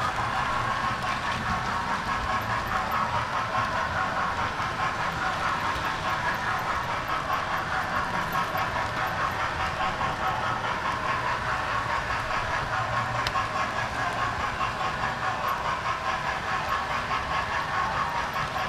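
Model railway train running on its track, heard from on board: a steady rolling rattle of wheels on rails with rapid, regular clicking.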